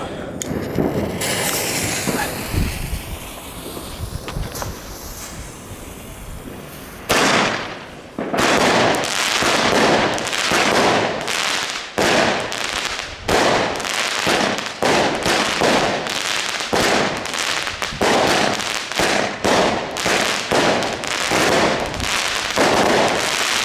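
Broekhoff Gold Tornado fireworks cake firing its 20 mm tubes: after several seconds of quieter hissing, a rapid volley of sharp shots starts about seven seconds in, roughly one a second, each followed by crackling, until the cake finishes near the end.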